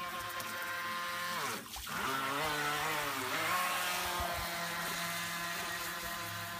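Electric RC speedboat's motor whining as the boat runs across the pond. About a second and a half in, the pitch dips sharply and climbs back, then holds steady.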